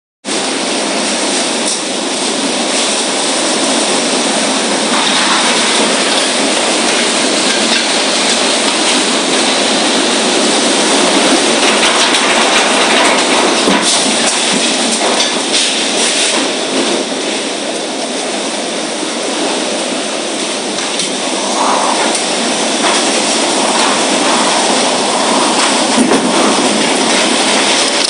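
Storm-force wind blowing hard and steadily through trees and around buildings, with a few faint knocks from flying debris.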